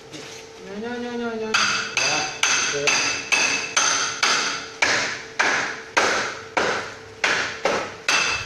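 Steady, rapid hammer blows, about two to three a second, on metal at the foot of a steel folding gate being fitted. Each blow rings with a metallic tone.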